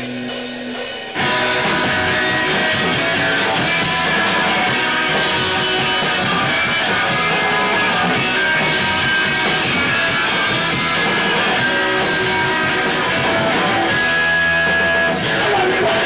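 Hardcore punk band playing live: a single held guitar note for about a second, then the full band, guitars and drums, comes in loud and keeps going.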